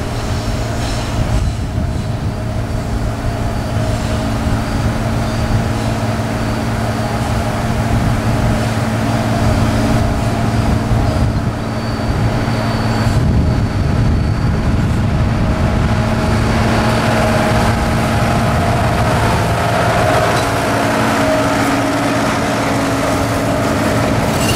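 Narrow-gauge diesel cane-train locomotive running under load with a steady engine note, growing louder as it approaches and passes. Near the end the rake of loaded cane bins rolls by on the track.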